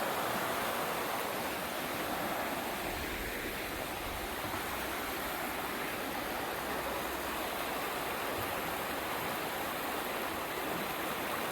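A river running high after heavy rain, a steady rush of flowing water.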